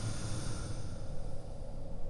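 Designed sleeping-dragon ambience: a steady deep rumble, with a high hiss that fades away about a second in.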